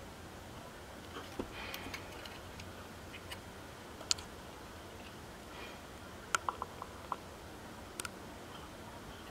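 Faint handling clicks and taps of a small circuit board turned in the fingers, its plastic standoffs knocking lightly, over low room hiss. A sharp click about four seconds in and a quick run of clicks a little after six seconds.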